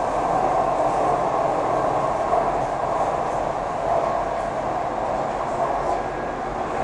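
Steady running noise of a RET Type-T rail car at speed, heard from inside the carriage: an even rumble and rush of wheels on track.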